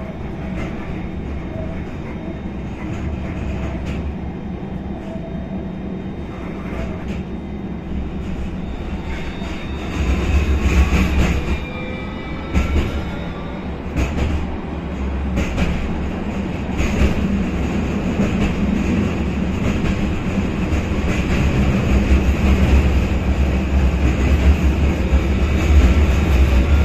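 Tram running, heard from inside the passenger saloon: a steady low rumble of wheels on rail with scattered knocks over joints, getting louder about ten seconds in as a faint rising whine comes in.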